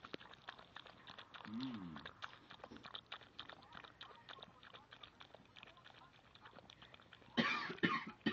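Shih-Tzu mother licking and lapping at her newborn puppy's birth sac: a steady run of small wet clicks and smacks. Near the end comes a short, loud cough-like burst.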